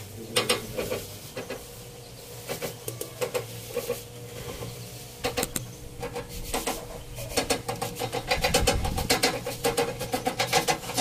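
Old treadle sewing machine worked by foot: the cast-iron treadle and drive mechanism clicking and rattling in uneven runs of ticks, which become faster and denser about halfway through.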